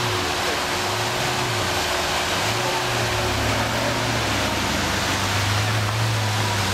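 Lamborghini Aventador's V12 engine running at low revs as the car pulls away slowly, its low hum wavering in pitch and then holding steady. Under it is a steady rushing background noise.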